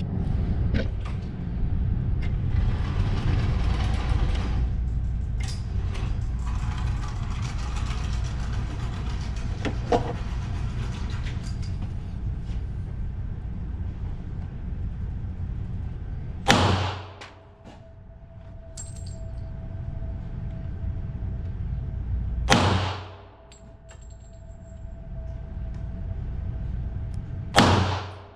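Three single shots from a Glock pistol, about six seconds apart, each sharp crack followed by a brief dip in the background. Before the first shot, a steady low rumble with a hiss over it runs for about sixteen seconds.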